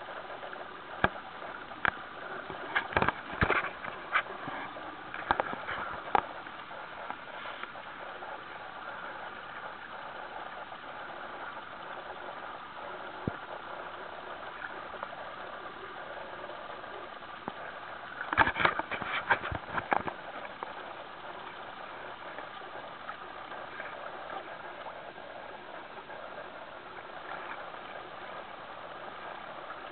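Pedal-powered boat under way: a steady whir from the pedal drive and propeller over water rushing along the hull, with clusters of sharp knocks a few seconds in and again about two-thirds of the way through.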